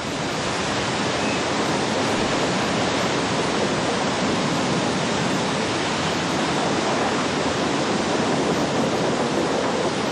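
Steady, unbroken rush of torrential floodwater, an even roar with no separate splashes.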